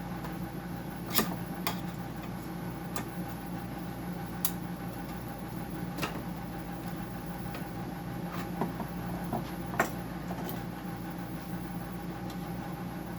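Scattered sharp plastic clicks and knocks from prying at a dehumidifier's control-board housing to break a part loose, loudest about a second in and again near the end. Under them runs a steady machine hum.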